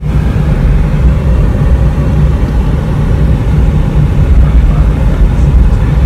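Steady low rumble of a moving car heard from inside the cabin: road and engine noise.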